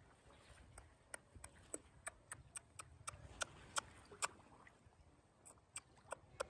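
Crowd of feeding pond fish smacking and gulping at the water surface, making quiet, sharp, irregular pops and clicks, about two or three a second, thinning out near the end.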